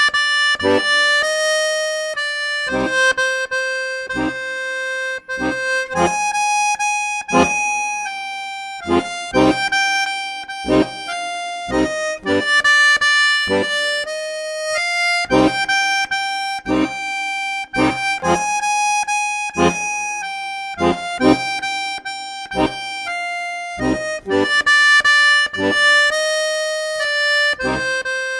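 Accordion playing a slow melody of long held notes over a steady bass-and-chord accompaniment.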